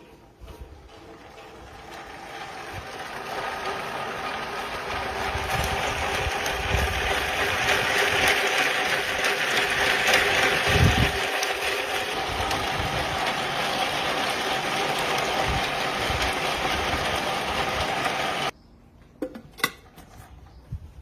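A small electric motor running steadily with a whine, rising in level over the first several seconds and then switched off abruptly near the end.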